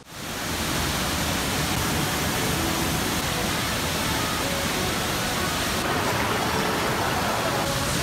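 Waterfall rushing steadily as it plunges into a rocky pool.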